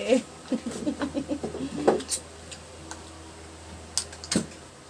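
A few sharp clicks and knocks from handling and opening a juice container, with faint murmured voice in the first two seconds.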